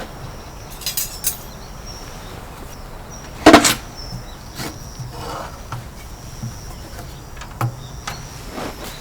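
A few hard knocks and clunks, as of objects being set down or handled: three light ones about a second in, one loud knock at about three and a half seconds, and another near the end. Insects chirr faintly and high throughout.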